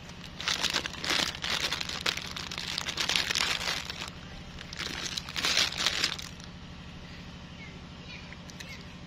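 Plastic candy wrapper crinkling in rough bursts for the first six seconds or so, over a steady low hum.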